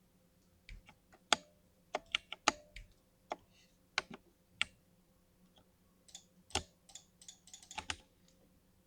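Keys with Cherry MX Silver linear switches being pressed on a mechanical keyboard: scattered single keystrokes with gaps between them, then a quick run of presses about six to eight seconds in.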